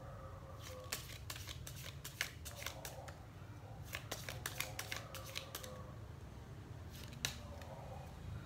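A deck of playing cards shuffled by hand, the cards snapping against each other in quick runs of clicks, three spells of shuffling with short pauses between.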